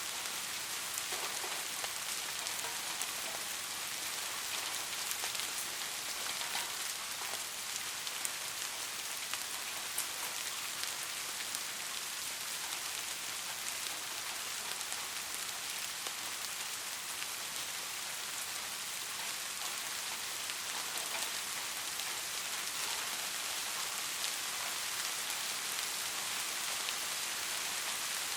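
Steady rain falling, a continuous hiss of many small drops pattering on a surface.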